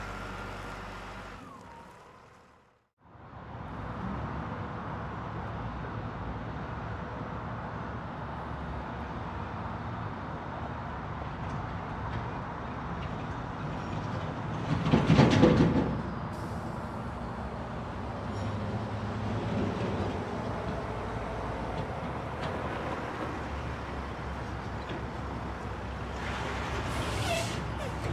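Construction-site ambience: a steady rumble of heavy machinery and vehicles. It briefly fades out and back in near the start, swells into a louder noisy burst of about a second and a half around the middle, and a shorter hiss comes near the end.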